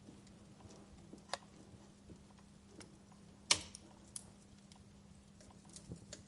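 Wood fire crackling in a fireplace: a low hiss with scattered sharp pops and snaps, the loudest about three and a half seconds in.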